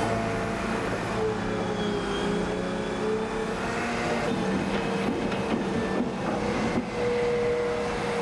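Hydraulic excavator's diesel engine running steadily as it digs, with small shifts in pitch as the load changes.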